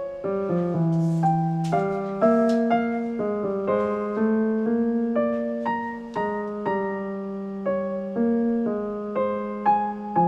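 Background music: gentle solo piano, a steady run of single notes struck about two to three a second and left to ring.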